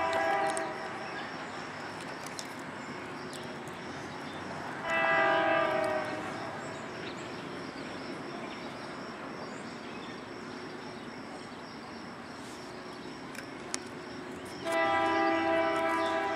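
Distant BNSF freight locomotive's air horn sounding a chord of several notes: a blast ending just after the start, a short blast about five seconds in, and a long blast starting near the end. Between the blasts, a steady rumbling hiss of the approaching train.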